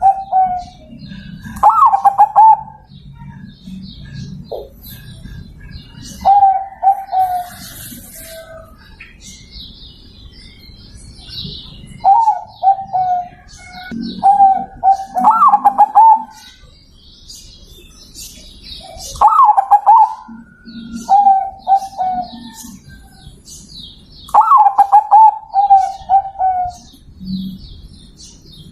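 Zebra dove (perkutut) cooing: short phrases of several rolling coos, repeated every few seconds. Faint chirps of small birds in the background.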